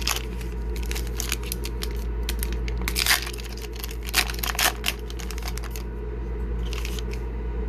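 Foil hockey card pack wrapper torn open and crinkled by hand: a dense run of sharp crackles and rips for about six seconds, then a short crinkle near the end.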